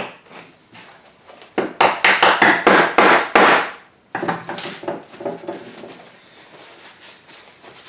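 A quick run of about eight sharp knocks over two seconds as a freshly glued 3D-printed plastic leg is pounded into its hub to seat it flush. Then softer paper-towel rustling as the joint is wiped.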